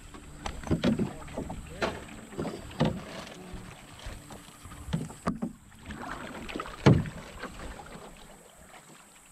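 Knocks and thumps in a canoe on the water: a paddle and gear bumping against the hull at irregular intervals, the loudest knock about seven seconds in.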